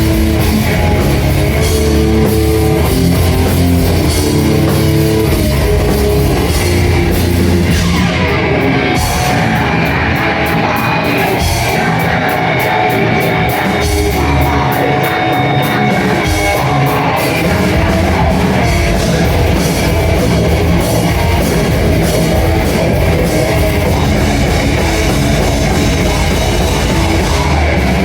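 Loud rock music with drums and guitar, playing continuously.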